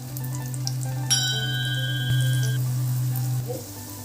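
Oil sizzling softly in a pan as stuffed wheat-flour snacks shallow-fry, with a metal clink that rings briefly about a second in.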